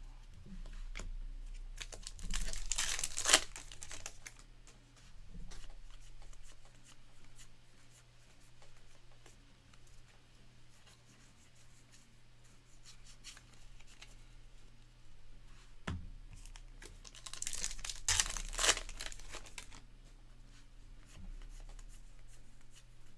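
Trading card pack wrapper tearing open and crinkling in two bursts, a couple of seconds in and again near the end, with light clicks of cards being handled in between.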